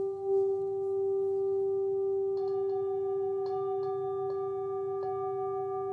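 A steady, bell-like ringing tone held throughout. From about two seconds in, several light taps add higher ringing tones above it.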